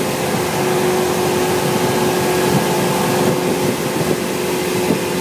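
Boat machinery running with a steady hum over a constant rushing noise.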